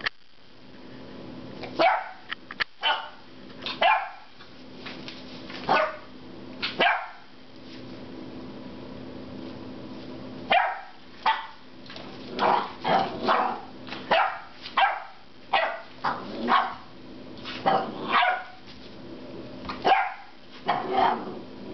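Ten-week-old puppy barking loudly and repeatedly in frustration at a rubber squeaky pig toy. The short barks come a few at a time at first, then faster and closer together from about halfway on.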